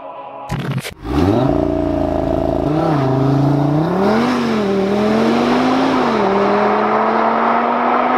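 Audi RS3's turbocharged five-cylinder engine, tuned to 618 PS, pulls away hard from a standstill and accelerates off down the road. The pitch rises quickly at launch, then dips briefly several times as the gearbox shifts up.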